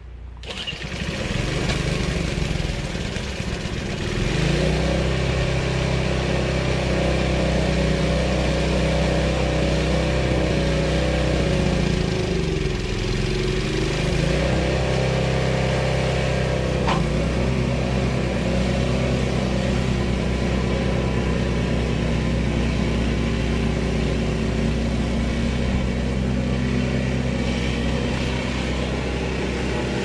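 Small engine of a two-stage walk-behind snowblower being restarted after stalling: it catches just after the start and comes up to a steady run. About twelve seconds in its speed sags and then picks back up.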